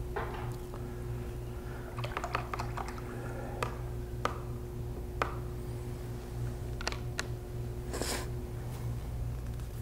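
Scattered light clicks and taps from a watercolourist's tools being handled at the worktable: a quick cluster about two seconds in, then single taps. A brief swish comes near the end, over a steady hum.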